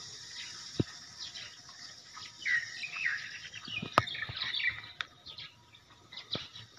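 Birds chirping in short bursts over a steady high hiss, with a few sharp clicks, the loudest about four seconds in.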